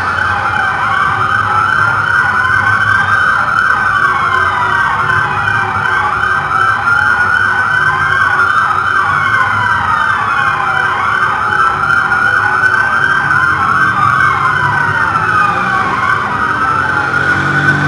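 Police car siren wailing, its pitch rising and falling slowly every few seconds, with two wailing tones crossing each other.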